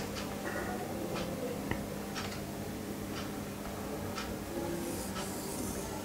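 Marker pen scraping across a whiteboard in short separate strokes, roughly one a second, over a faint steady hum.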